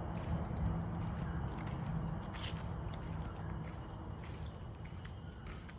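Steady high-pitched chorus of forest insects, with a few faint footsteps and a low rumble underneath.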